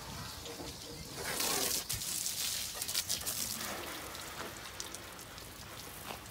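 Light rain pattering, a steady hiss with scattered drop ticks, heavier for a couple of seconds starting about a second and a half in.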